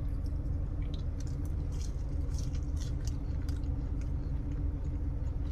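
A person chewing a mouthful of French fries dipped in sauce, with scattered wet mouth clicks, over a steady low hum.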